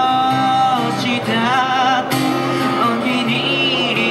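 Street busker singing through a microphone and small amplifier, accompanied by guitar. A long held note opens, followed by wavering notes with vibrato.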